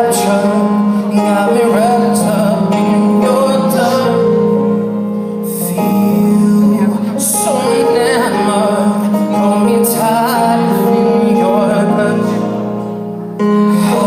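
Live pop song performance: a singer's wordless vocal runs over sustained instrumental chords. The loudness dips briefly near the end and then comes back in suddenly.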